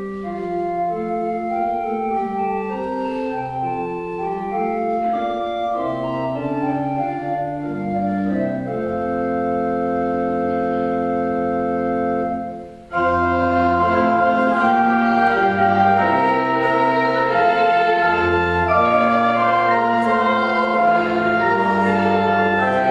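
Church organ playing slow sustained chords. A long held chord fades away about twelve seconds in, and a fuller, louder passage starts abruptly just after.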